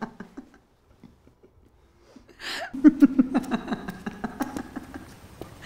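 A woman laughing in quick pulses that break off just after the start. After about two seconds of near silence comes a sharp breath in, and the laugh starts again, fading toward the end.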